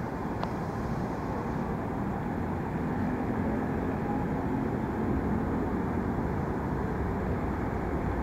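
Electric commuter train (KRL) pulling away along the platform track: a steady low rumble of wheels and motors, with a faint low hum in the middle.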